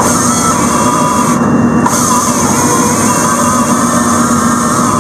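Rotobec grapple saw's hydraulic chain bar cutting steadily through a log, over the carrier machine's engine and hydraulics working hard. A loud, continuous mechanical whine.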